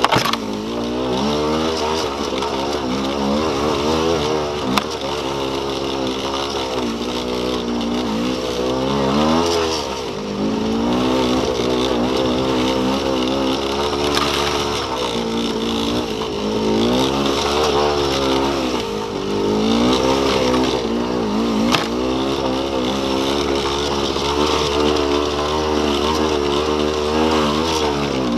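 Trail motorcycle engine revving up and down in a low gear on a rocky climb, its pitch rising and falling with the throttle. There are a couple of sharp knocks along the way.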